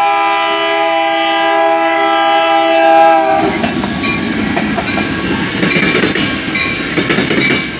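A CN diesel locomotive running light sounds its multi-note horn in one long blast of about three and a half seconds, dipping slightly in pitch as it passes. The horn is followed by the rumble and clatter of the locomotive's engine and wheels crossing the road.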